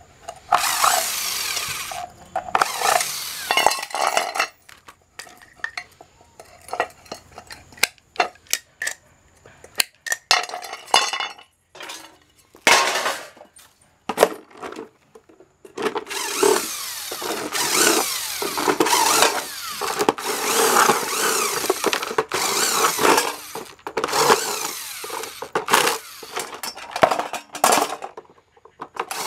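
Cordless impact driver running in repeated bursts, backing cross-head screws out of a hot plate's metal housing. Through the quieter middle stretch come scattered sharp clicks of screws and small metal parts being handled and dropped.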